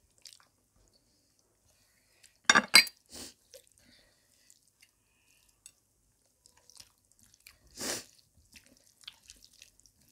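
Quiet eating-show sounds of rice and curry being handled and eaten by hand. About two and a half seconds in comes a quick run of sharp clinks of a glass curry bowl against the dishes, and near eight seconds a short, soft noisy burst.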